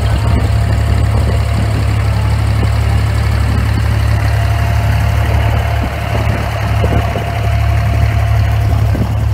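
Inboard diesel engine of a wooden abra water taxi running steadily under way: a loud, even low drone with a thin steady whine above it.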